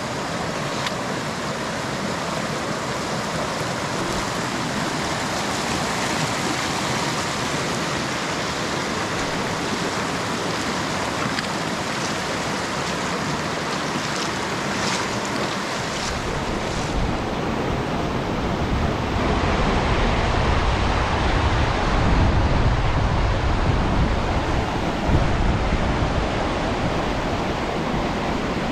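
River water rushing steadily. About halfway through a deep rumble joins in and the sound gets somewhat louder.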